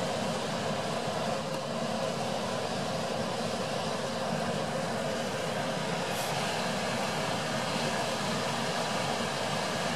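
Steady background noise, an even low rumble and hiss with no distinct sound standing out.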